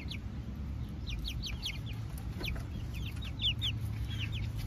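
Chickens making short, high, falling chirps in quick little clusters, over a steady low rumble of wind on the microphone.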